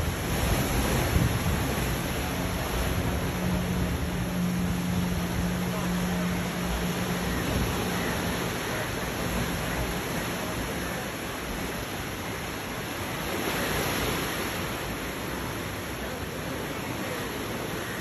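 Ocean surf washing onto a sandy beach among rocks, a steady rush of breaking waves with one swelling louder about two-thirds of the way through. A low steady hum sits under it for the first half.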